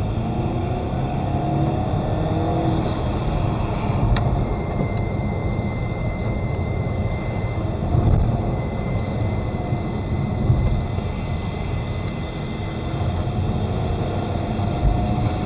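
Car under way with engine and road noise, and a thin high-pitched whistle of one unchanging pitch that comes in about four seconds in and fades out several seconds later. The whistle appears when the throttle is released and the engine brakes the car, keeping the same tone whatever the engine speed; its cause is unknown, with the owner suspecting the alternator belt and idler, the alternator, the AC compressor, the oil pump's second stage or the turbo.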